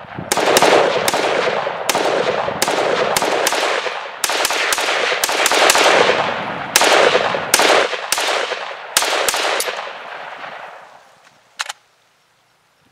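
Zastava ZPAP M90PS rifle in 5.56 NATO fired rapidly in semi-automatic, about twenty echoing shots in quick uneven strings, then one last single shot near the end.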